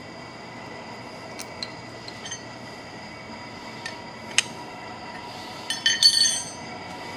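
Steel wrench clinking on the bolts and cast-iron frame of a lathe steady rest as it is tightened: scattered light metal clicks, a sharp clink about four seconds in, then a short cluster of ringing clinks near the end, over a steady machine-shop hum.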